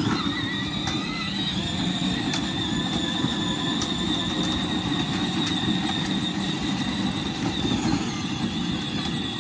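Children's battery-powered ride-on toy car driving over pavers: a steady rolling rumble from its plastic wheels with a thin, steady high whine from its electric drive motor.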